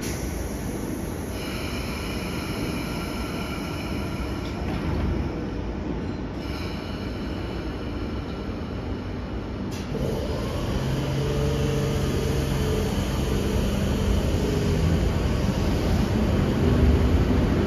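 Sydney Trains K set electric train running on the rails, with a high-pitched wheel squeal held for several seconds. About ten seconds in there is a sharp click, then a lower steady hum as the running noise grows louder.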